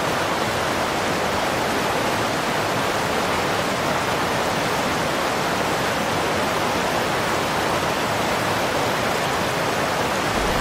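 Steady rushing roar of a river in flood, its swollen water surging through a gorge.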